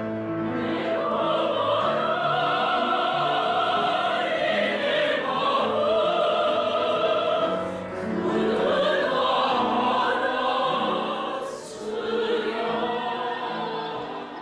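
Classical singing in an operatic style: voices holding long notes, with short breaks in the phrasing about eight seconds in and again near twelve seconds.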